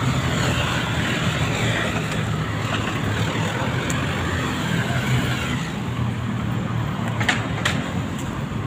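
Roadside traffic: passing vehicles and engines running steadily with a low hum. Two short sharp clicks a little after seven seconds in.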